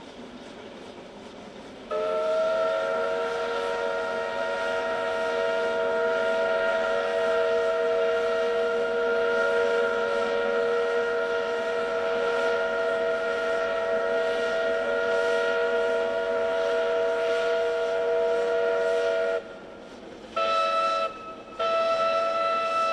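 Steam whistle of a C2-class narrow-gauge steam locomotive: one long blast of about seventeen seconds with several notes sounding together, then two short blasts near the end.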